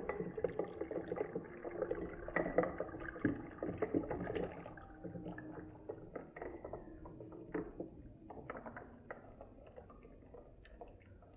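Watermelon juice pouring in a thin stream into a glass over ice cubes, splashing and bubbling as the glass fills. It is louder for the first four seconds or so, then quieter as the stream thins.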